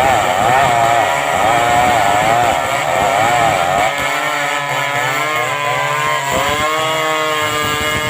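Stihl 070 two-stroke chainsaw ripping a log into planks. Its engine speed wavers for the first few seconds, then settles to a steadier, lower note about halfway through.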